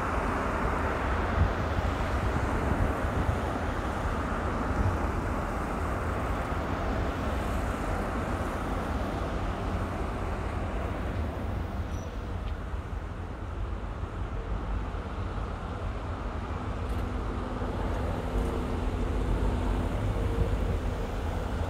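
Police vehicles (SUVs and a pickup) driving past one after another, a steady wash of tyre and engine noise with a deep rumble underneath.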